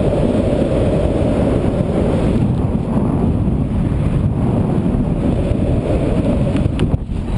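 Wind buffeting the microphone of a wrist-mounted camera during a tandem parachute descent under open canopy: a steady, loud, deep rush of air. It dips briefly near the end, with a couple of faint clicks.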